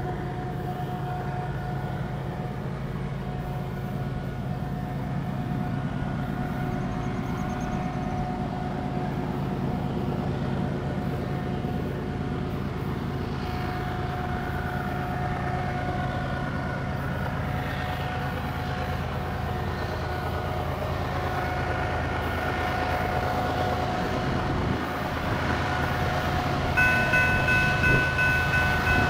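Distant diesel locomotives (two GE ES44ACs and an EMD SD70MAC) working under load as they haul a loaded coal train up a grade: a steady low engine drone that grows slowly louder as the train approaches. Near the end the lead locomotive's air horn starts to sound.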